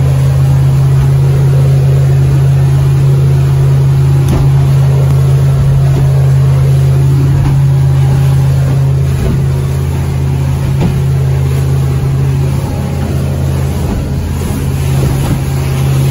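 Small boat's outboard motor running steadily at speed: one unchanging low drone.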